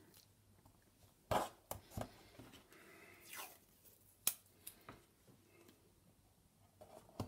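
Quiet handling of washi tape on MDF: a strip torn and pulled off with a short rasp, and a few light, sharp taps as it is pressed onto the wooden pieces.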